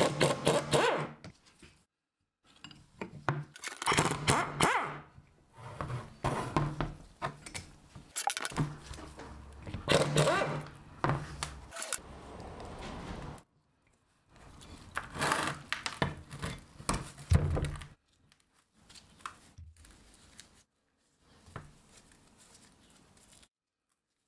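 Several bursts of an impact wrench hammering at the seized bolts of a rusty brake caliper, each a second or three of rapid knocking over a low hum. Between and after them come knocks and scrapes of rusty metal parts being handled and pulled apart, quieter near the end.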